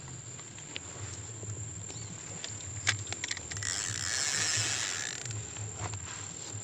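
Insects trilling steadily at one high pitch. A few sharp clicks come a little before the middle, then a rushing hiss lasting about a second and a half.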